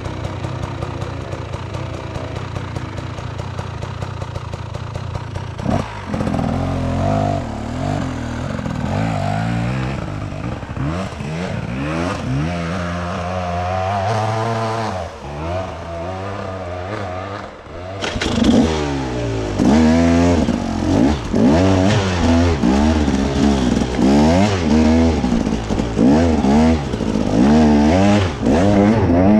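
Off-road vehicle engine running steadily at low revs, then from about six seconds in revving up and down again and again as the throttle is worked. In the last ten seconds the revs rise sharply about once a second.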